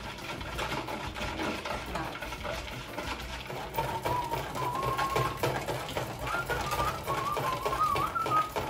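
Wire whisk beating cold cream by hand in a plastic bowl: fast, continuous clicking and rattling strokes as the cream is whipped. From about four seconds in, a person whistles a wavering tune over it.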